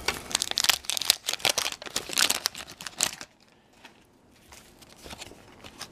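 Wax-paper baseball card pack wrapper being torn open and crinkled by hand, a dense run of sharp crackles that stops about three seconds in, followed by faint rustling of the cards being handled.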